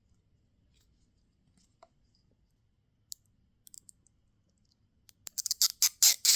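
Watch packaging being handled: a few small sharp clicks and taps, then about a second of loud, quick crackling near the end, like plastic packaging being crumpled or pulled open.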